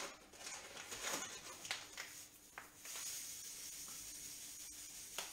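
Granulated sugar being poured from a cup into a dish on a kitchen scale: a few light taps, then a soft, steady hiss of running grains for about two seconds in the second half.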